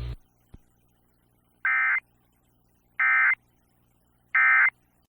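Emergency Alert System digital data tones sound as three identical short warbling bursts, each about a third of a second long and spaced about 1.3 s apart. This is the SAME End of Message code that closes the broadcast alert. A faint click comes about half a second in, before the first burst.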